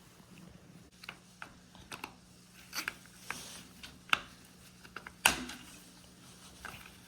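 Plastic clicks and knocks from a dishwasher rack adjuster being handled and fitted onto the rack: a string of scattered sharp clicks, the loudest about five seconds in.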